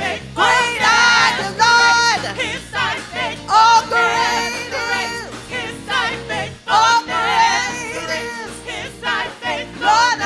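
Gospel praise team singing with vibrato, sustaining and bending long high notes, over a live church band of drums, keyboard and guitar.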